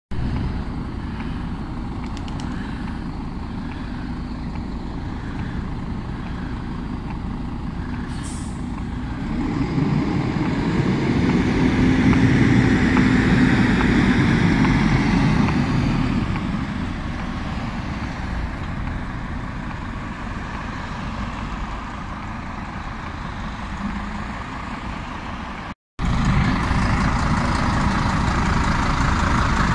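MAN NG 312 articulated city bus with its diesel engine running, swelling louder as it drives past about ten seconds in and then fading. After a brief dropout near the end, the engine is heard close up and steady, idling at a stop.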